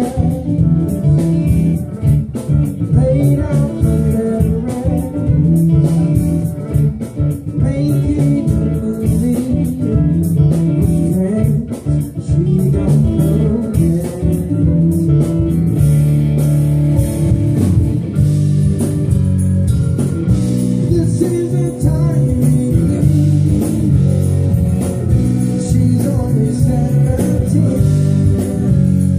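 A live funk band playing, amplified: drum kit, electric bass, electric guitar and keyboards together.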